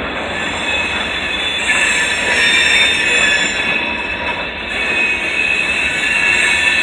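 Freight train of hopper cars rolling past, the steel wheels squealing in high, steady tones over the running rumble of the cars on the rails.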